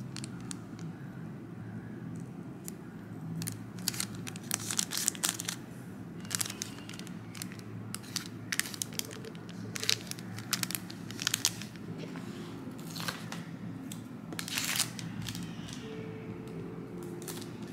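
Clear plastic packaging sleeve crinkling and crackling in short irregular spurts as it is handled, over a low steady hum.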